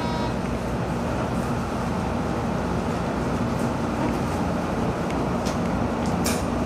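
Odakyu 3000 series electric commuter train running along the line: a steady rumble of wheels on rail with a low motor hum. A short beep sounds right at the start, and two brief high squeaks come near the end.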